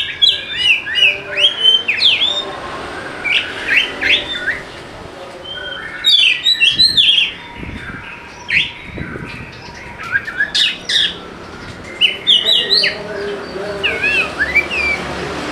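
Oriental magpie-robin singing a loud, varied song. Bursts of rapid chirps, whistles and sweeping up-and-down notes are broken by short pauses.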